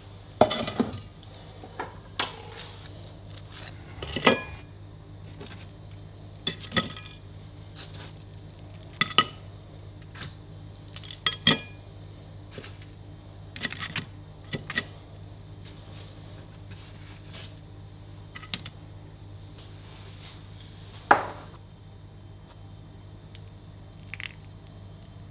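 Metal serving utensils clinking and tapping against a ceramic dinner plate as food is served onto it. There are about a dozen short, sharp clinks at irregular intervals over a steady low hum.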